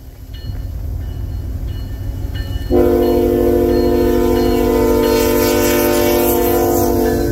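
Air horn of a CN GE ET44AC diesel locomotive sounding one long steady chord for a grade crossing, starting about three seconds in. Under it, the rumble of the approaching locomotives and wheels grows louder.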